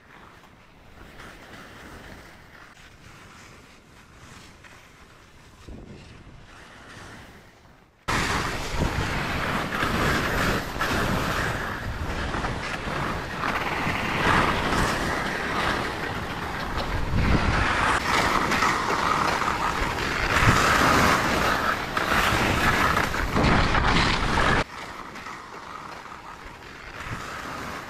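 Rushing noise of skiing downhill through snow, skis hissing and scraping with wind on the microphone. It starts suddenly and loud about eight seconds in, varies in level, and cuts back to a much quieter rushing shortly before the end.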